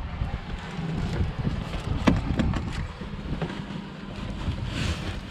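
Handling noise in a car boot: things being shifted about, with a few knocks on the boot floor, the sharpest about two seconds in, and a plastic bag rustling near the end, over a low wind rumble on the microphone.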